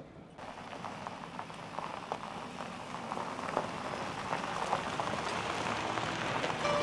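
Tyres of a Ford pickup and its canoe trailer crunching slowly over gravel: a steady crackling that grows gradually louder.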